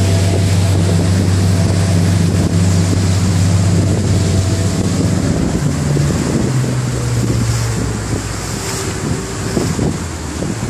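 Motorboat engine running steadily under way, with wind buffeting the microphone and water rushing past the hull. In the last few seconds the engine note shifts down and eases off as the boat slows.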